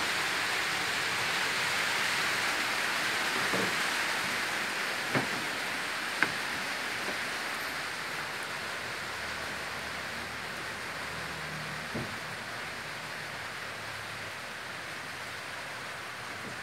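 A steady, even hiss that slowly fades, with a few faint knocks scattered through it.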